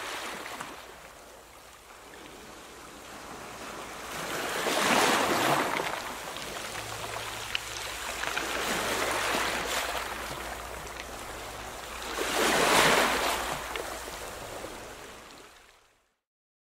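Sea waves breaking on a sandy beach, a steady wash of surf that swells loudly twice, about five seconds in and again about thirteen seconds in, then fades out near the end.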